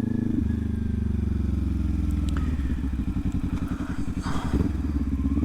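Kawasaki Ninja 400's parallel-twin engine, dropping in pitch as the bike slows, then running at low revs with a pulsing exhaust beat that picks up slightly near the end.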